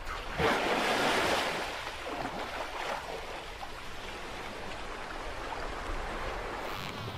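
Orcas surfacing in a narrow lead in sea ice: a burst of splashing water and spray about half a second in, then water sloshing and lapping steadily.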